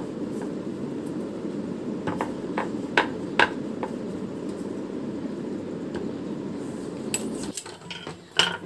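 Wooden rolling pin rolling dough out thin on a wooden board: a steady rolling rumble with a few sharp knocks and clicks, stopping a little before the end.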